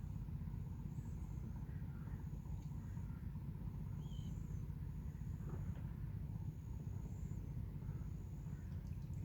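Outdoor lakeside ambience: a steady low rumble of wind on the microphone, with faint small-bird chirps and a faint high insect-like trill repeating about once a second.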